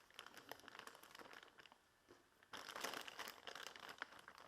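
Packaging crinkling and rustling as a boxed RC transmitter is unwrapped by hand: light scattered crackles, a short lull about two seconds in, then louder, denser crinkling.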